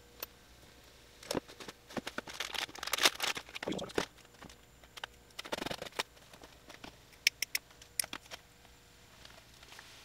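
Loose insulated wires of an engine wiring harness being handled and pulled, rustling and ticking against each other in irregular bursts, followed by a quick cluster of sharp clicks about seven seconds in.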